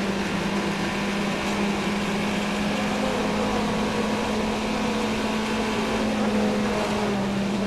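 A vehicle engine droning steadily at one unchanging pitch, over a wide hiss of noise.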